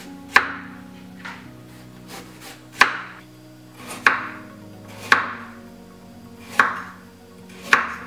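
Chef's knife slicing a raw carrot into rounds on a wooden cutting board: six cuts, each ending in a sharp knock of the blade on the board, one every second or so.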